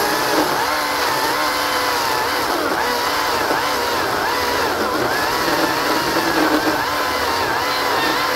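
A Greenworks GS181 82-volt electric chainsaw cutting through a large oak log. Its motor whine keeps dipping in pitch and recovering, about once or twice a second, as the saw bogs under load, clearly struggling a little bit.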